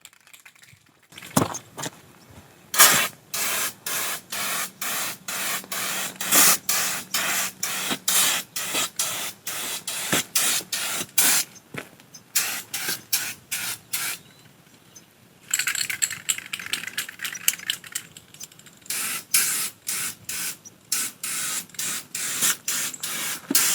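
Rust-Oleum Turbo spray paint can spraying in quick short bursts, about two a second, with a couple of longer steady sprays of several seconds past the middle.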